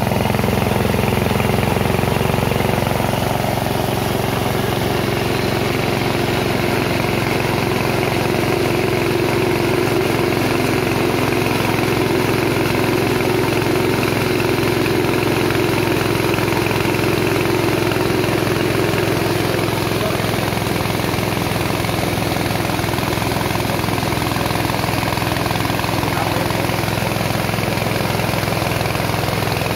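Small 6.5 hp single-cylinder petrol engine running steadily at constant speed, driving a Carlton rice milling machine.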